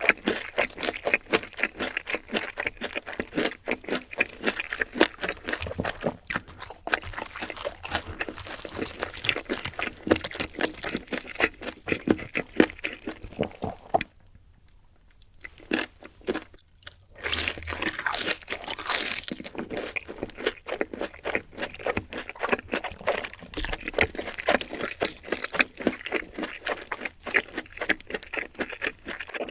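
Close-miked crunching and chewing of crispy food in rapid, loud bites, with a short pause about halfway through.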